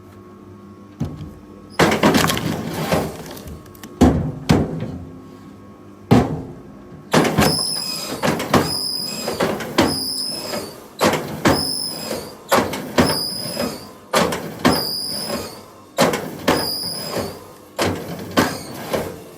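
Firewood being split: repeated heavy strikes, irregular at first and then about one every second and a half, each with a short high metallic ring, and wood creaking and squeaking between blows.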